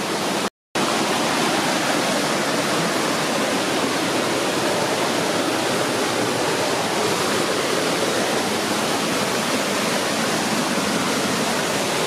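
Steady rushing of a mountain creek's water cascading over rocks into pools, close by, with a brief dropout to silence about half a second in.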